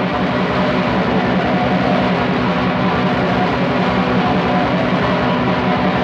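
Raw black metal: a dense, unbroken wall of heavily distorted electric guitars over fast, rapid-fire drumming, with a lo-fi demo sound.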